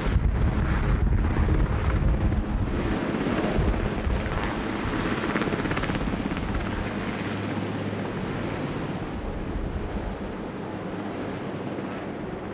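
Sikorsky VH-3 Sea King helicopter (Marine One) lifting off and climbing away, rotors and turbines running, with rotor wash buffeting the microphone at first. The sound gradually fades as it gains height and distance.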